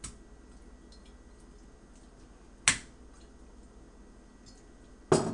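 Sharp clicks of a glass oil bottle being handled over a plate of raw steaks, with a loud one about halfway through and another near the end.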